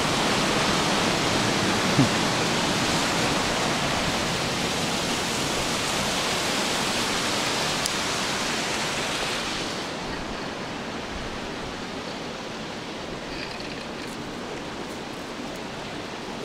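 Steady rush of flowing water, an even hiss across all pitches, becoming quieter and duller about ten seconds in.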